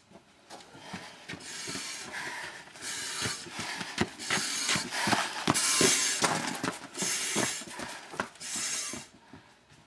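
A firefighter in turnout gear with a breathing-apparatus cylinder on his back walks past: footsteps and clicking gear, with a loud hiss about once a second. It grows loudest about six seconds in as he passes close, then fades near the end.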